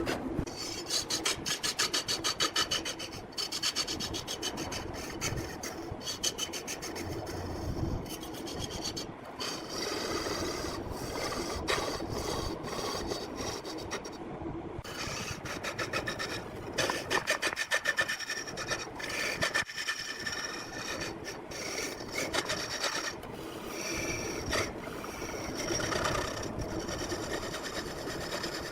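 Turning tool scraping and cutting into a log spinning on a large wood lathe, a continuous rasping sound. At times it chatters with rapid, even ticks, loudest near the start and about two-thirds of the way through.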